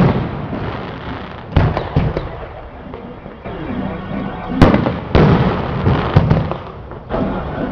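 Fireworks going off: about six loud, sharp bangs at uneven intervals, each trailing off into a rumble, over a steady background din.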